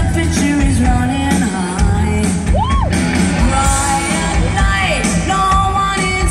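A live rock band playing a song with a lead vocal, heard from far back in the audience stands of an outdoor amphitheater.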